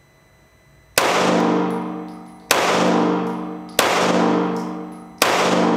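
Springfield Armory XD9 9mm pistol fired four times, slow deliberate shots about a second and a half apart, the first about a second in. Each shot is followed by a long ringing echo that dies away before the next.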